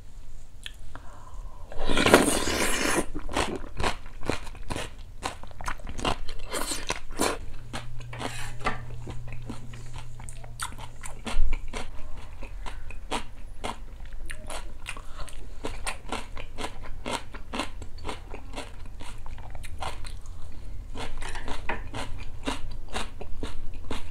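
A person eating cold acorn-jelly soup (muksabal): a loud slurp about two seconds in, then steady crunching and chewing of cucumber and kimchi.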